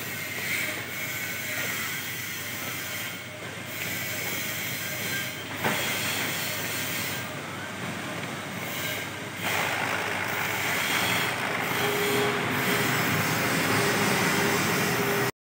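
Desktop ink-tank inkjet printer printing: the print-head carriage shuttles back and forth with a steady mechanical whir. There is a sharp click about halfway through and a steady motor whine near the end, and the sound cuts off suddenly.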